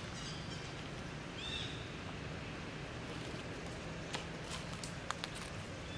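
Footsteps crunching and crackling on dry leaf litter about four seconds in, over a steady low outdoor background, with one short high chirp about a second and a half in.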